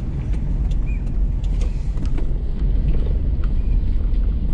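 Car driving, heard from inside the cabin: a steady low engine and road rumble with a few faint clicks.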